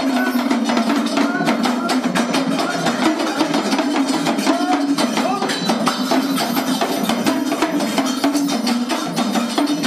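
Gujarati devotional folk music: fast, continuous percussion of struck metal cymbals under a wavering melody line.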